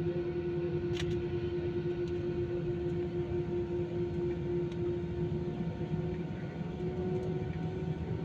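Jet airliner's engines heard from inside the cabin, a steady drone with a held whining tone at taxi power while the plane lines up on the runway; the tone edges slightly higher near the end. A brief click about a second in.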